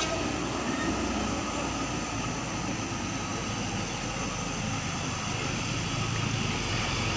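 Diesel engine of a Hino box truck running steadily under load as it crawls up a steep climb, a constant drone with no change in revs.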